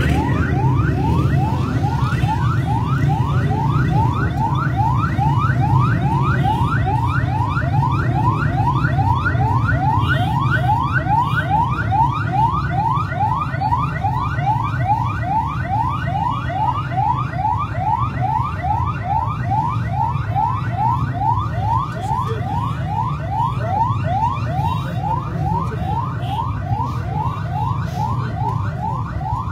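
Rescue 1122 ambulance siren in a fast yelp, a rising sweep repeated about three times a second, over the steady din of a large crowd.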